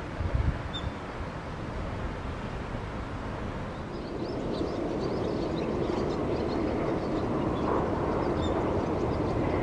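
Meitetsu electric train approaching, its running noise growing steadily louder from about four seconds in. Wind buffets the microphone near the start, and small birds chirp faintly.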